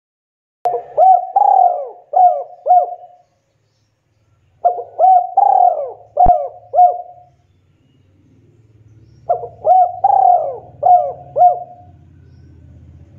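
Spotted dove cooing: three phrases of about five coos each, a couple of seconds apart, with a single sharp click partway through the second phrase.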